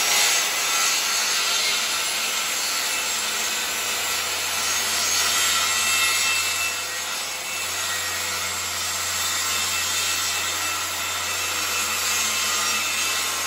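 Guild 1400 W 185 mm circular saw running through hardwood plywood in one steady, continuous diagonal cut.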